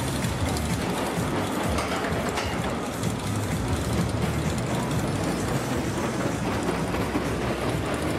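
Wild Mouse roller coaster car running along its steel track, a steady rolling noise.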